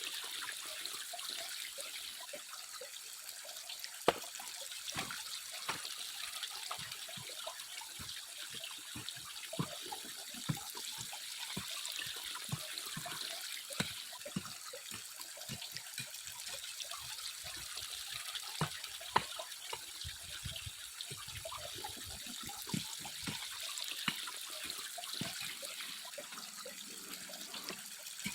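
Water trickling and sloshing, with frequent small clicks and knocks of gravel and stones, sharpest about four seconds in and again near nineteen seconds: gold-bearing sediment being washed by hand.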